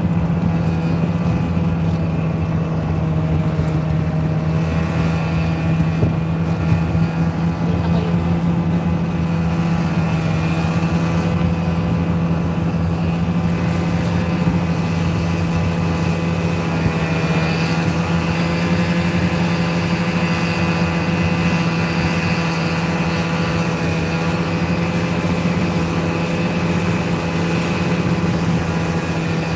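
Snowmobile engine running steadily while driving along, a constant drone whose pitch wavers slightly about halfway through.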